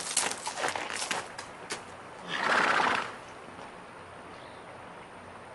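Horse hooves clopping in quick, irregular knocks for the first second and a half, then the horse gives one short, loud whinny about two and a half seconds in.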